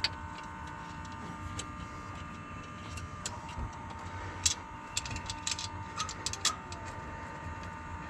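Scattered light metallic clicks and taps from small fasteners and parts being handled while injector hold-downs are threaded on by hand, a few sharper clicks near the middle, over a steady high hum.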